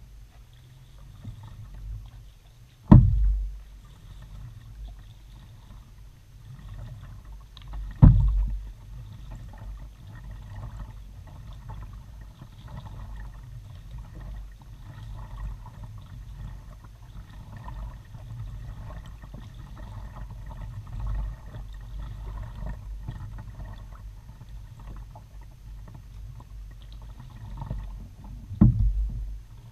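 Kayak being paddled on calm water, heard from the bow: soft paddle splashes and drips over a steady low rumble. Three sharp knocks on the kayak stand out, about three seconds in, about eight seconds in and near the end.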